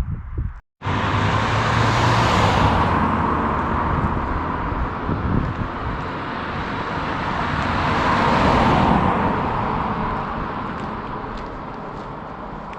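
Road traffic: vehicles going by, the road noise swelling and fading twice, loudest about two seconds and about eight seconds in, after a moment of silence just under a second in.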